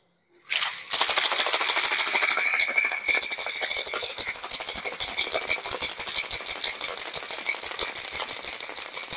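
Ice cubes and liquid rattling inside a stainless steel cocktail shaker, shaken hard and fast in a quick, even rhythm. The shaking starts about half a second in and mixes espresso, palm sugar syrup and ice into an iced shake.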